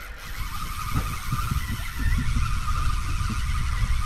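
Wind buffeting the microphone in an irregular low rumble, over a steady higher hiss.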